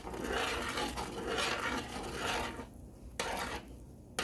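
Spoon stirring and scraping through a pot of ackee, chicken and coconut milk, in several uneven strokes, then quieter with one short scrape a little past three seconds in.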